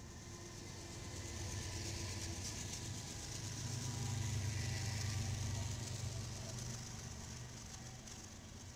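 Diesel locomotives at the head of a freight train passing close by: a low engine rumble that builds to its loudest about four to five seconds in and then fades, with a hiss of steel wheels on rail over it.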